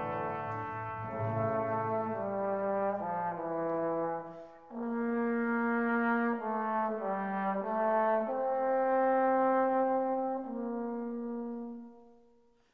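Instrumental background music: a slow melody of long held notes that changes every second or so, fading out near the end.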